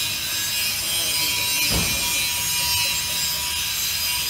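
Nylon cutting cord sawing through the polyurethane adhesive bead of a bonded windscreen, a steady scratchy rubbing noise as the cord is drawn along the glass edge.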